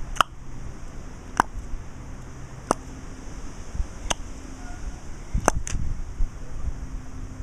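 A squirrel giving short, sharp alarm calls, one about every second and a half, with the last two in quick succession.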